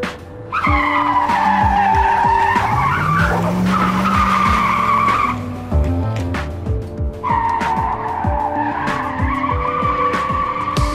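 Tyre-screech sound effect: two long squeals, each of about four seconds, the first starting about half a second in and the second about seven seconds in, each dipping in pitch and then levelling off. Background music plays underneath.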